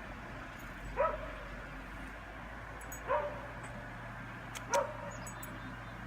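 A dog barking: three single barks, about two seconds apart.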